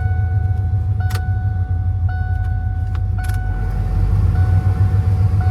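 Ford F-150's straight-piped exhaust with long-tube headers droning from inside the cab while driving, a steady deep pulsing. A thin steady tone runs over it, breaking off roughly once a second.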